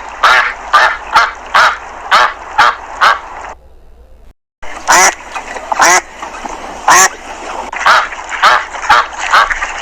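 Domestic waterfowl calling over and over, about three calls a second. A brief dead silence about four seconds in, then the calls go on.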